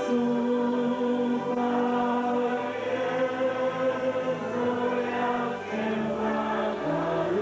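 A group of voices singing a slow hymn in long held notes, changing pitch every second or two.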